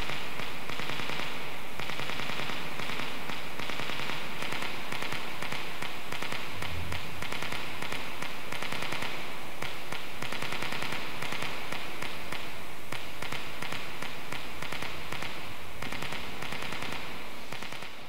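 Many small loudspeakers sounding dense, overlapping rapid clicks: Arduino-driven Morse code pulses. The clicking fades out at the end.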